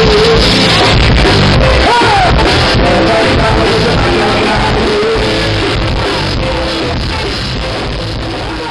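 Live band playing loud music with a voice singing over it, gradually fading out.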